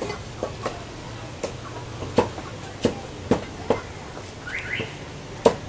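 Meat cleaver chopping skinned chicken on a round wooden chopping block: sharp, irregularly spaced chops, the loudest near the end. A brief rising chirp sounds a little over four seconds in.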